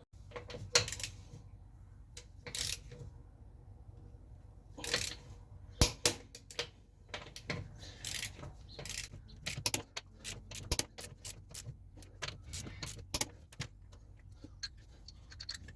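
Scattered, irregular light metallic clinks and clicks, some in quick clusters, as of hand tools or metal parts being handled.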